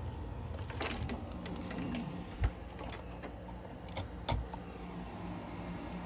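Navien NCB-240E combi boiler powering up after being plugged in: a steady low motor hum begins about a second and a half in, with a few sharp clicks.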